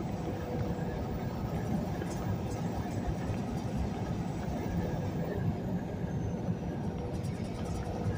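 Steady drone of a semi truck's diesel engine and tyre rumble, heard inside the cab while cruising on the highway.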